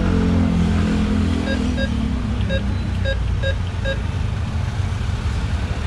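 Low, steady rumble of a motor vehicle, with a pitched hum that drops over the first couple of seconds. About six short, high beeps come in the middle.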